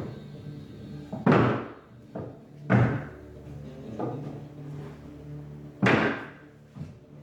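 Loud, sudden slamming thuds, one about a second in, another a second and a half later and a third near the end, each dying away, over background music with a low held note.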